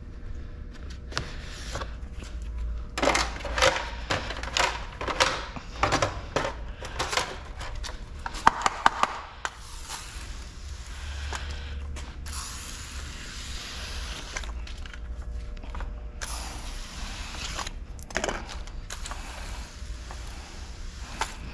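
Quick scraping and rubbing strokes of a hand tool working the edges of a car door window, clearing them before tint goes on. They are followed by three long hisses, each lasting a few seconds, over a low steady hum.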